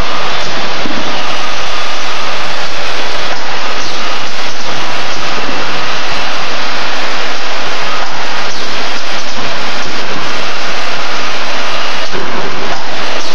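Steady, loud roar of running factory machinery, overloaded into a harsh, even hiss, with a few faint knocks.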